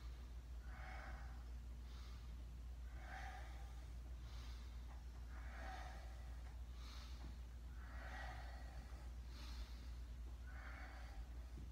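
A man breathing slowly and deeply while holding a kneeling quad stretch: soft, audible breaths in and out, about one full breath every two and a half seconds.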